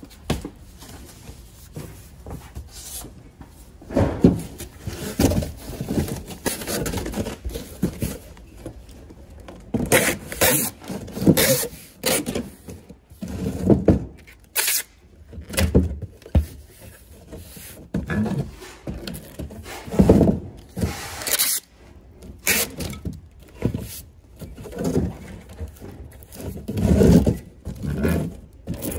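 Cardboard boxes being handled and shifted: irregular thunks, scrapes and rustles of cardboard, with a few sharper knocks.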